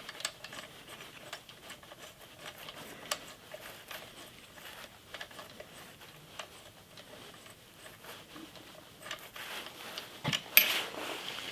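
Small metal hardware being handled: scattered light clicks and rustling, with a sharper click about ten seconds in.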